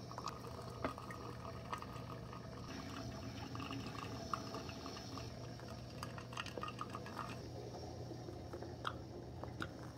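Moccamaster drip coffee maker brewing: hot water trickling and spattering onto the coffee grounds in the filter cone and dripping into the glass carafe. Scattered small drips over a steady low hum.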